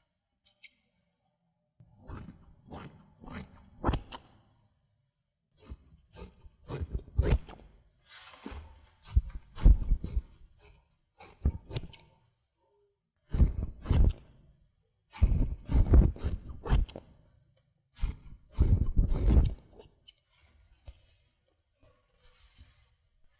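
Hair-cutting scissors snipping close to the ear, in bursts of quick snips with short pauses between them and a fainter burst near the end.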